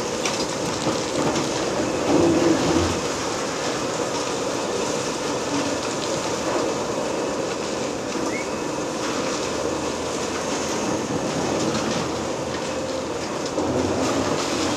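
Liebherr R 980 demolition excavator at work: the diesel engine runs steadily under a continuous rattling rumble of demolition. It grows louder about two seconds in and again near the end.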